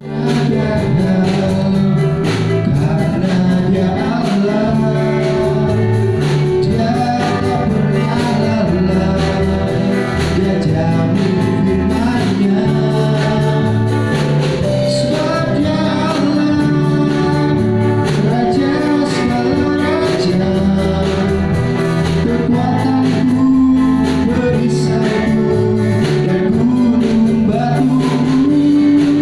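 Christian praise-and-worship song: singing voices carrying a melody over a band accompaniment with a regular beat.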